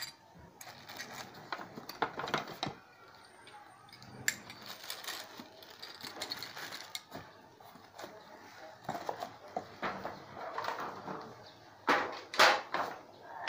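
Rustling of plastic wrap and cardboard with scattered light clicks and knocks as chrome drum-throne tubes are handled out of the packing box. A few louder knocks near the end.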